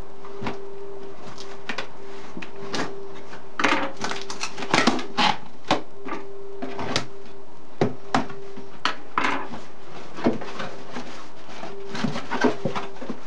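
Cardboard shipping box being opened by hand: packing tape peeled off, flaps pulled open and crumpled paper packing rustled, in a run of short rasps and crackles. Underneath is the steady noise of a loud household boiler, with a low hum that comes and goes.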